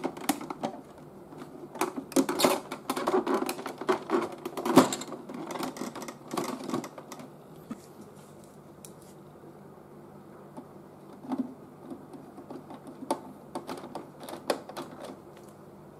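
Plastic clicks and knocks as the Epson L3110 inkjet printer's housing is handled and pressed back together. The clicks come thick and fast for the first several seconds, then give way to a few scattered clicks as a screwdriver goes in.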